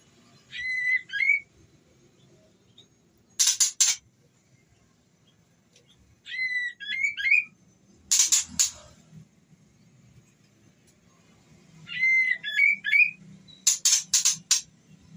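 White-rumped shama (murai batu), a female in breeding condition, calling to draw a male. Three times a short whistled phrase is followed, about two seconds later, by a short burst of harsh rattling notes.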